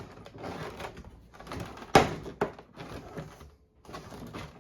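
Figure packaging being handled and pulled at: rustling and scuffing, with a sharp knock about two seconds in and a lighter one just after.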